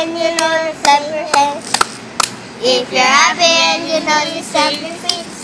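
Young children singing a nursery rhyme, with sharp hand claps keeping time about twice a second.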